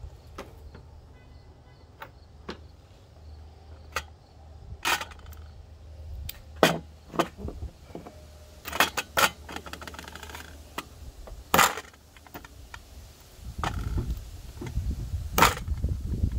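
Sharp, separate clicks and clinks of a small metal tool working against a lawnmower carburetor in an aluminium parts pan as the old rubber primer bulb is pried out. A low rumble comes in near the end.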